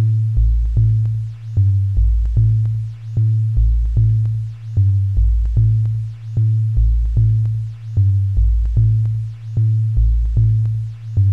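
Electronic music from an Amiga 4k demo's own synthesized soundtrack: a steady kick-drum beat over a deep synth bass that alternates between two low notes, with a short higher blip on every other beat.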